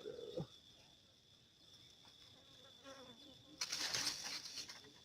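A steady, high insect drone, with a short falling pitched call at the start and a loud noisy rush lasting about a second, starting about three and a half seconds in.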